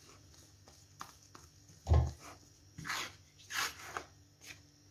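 A spatula stirring flour into carrot-cake batter in a plastic bowl: a few soft scraping swishes, with a dull low thump about two seconds in.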